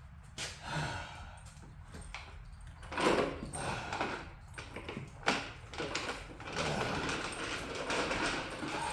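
Irregular knocks and scraping, as of heavy parts being shifted about, with a sharp knock about three seconds in and another about five seconds in.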